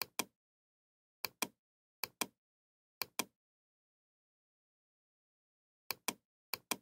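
Computer mouse clicks in quick pairs, press and release or double-clicks: six pairs, with a pause of a couple of seconds in the middle and dead silence between them.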